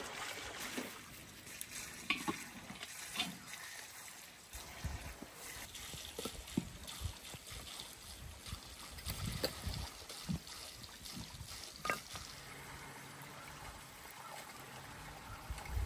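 Water running from a hose into a basin, fading out within the first second or so. After that come scattered clicks and knocks and a few low thumps.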